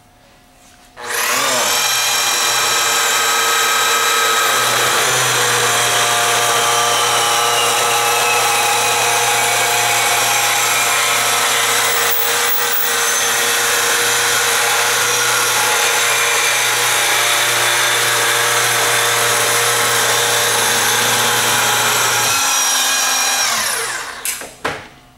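Lefon Lite 4 tube saw's Metabo electric motor spinning its blade to cut through 2.5-inch stainless sanitary tubing: a steady whine that spins up about a second in, dips briefly about halfway, and winds down in falling pitch near the end.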